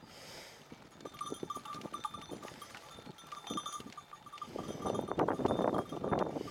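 Sheep bells tinkling as a small flock walks along the road. Near the end there is a louder, rough, pulsing sound lasting about two seconds.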